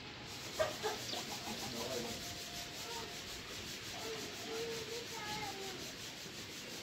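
A steady, scratchy rubbing noise.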